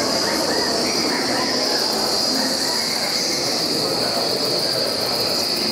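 Steady ambience of a busy exhibition hall: a constant high-pitched whine over indistinct crowd voices.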